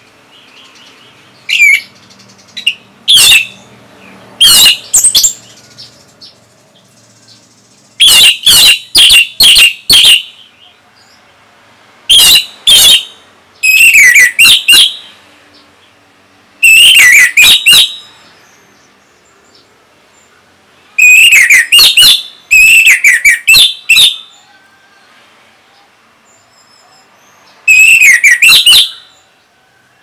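Orange-headed thrush (anis merah) singing loudly in full song, in short rapid phrases of about a second each, separated by pauses of a few seconds.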